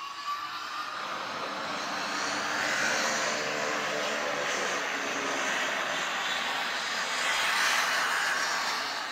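A distant engine drone that builds over the first two seconds or so, holds steady and is loudest near the end.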